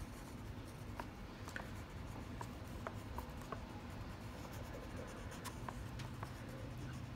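Watercolour crayon scratching and rubbing on paper in short strokes, faint, with many small ticks as it is worked in.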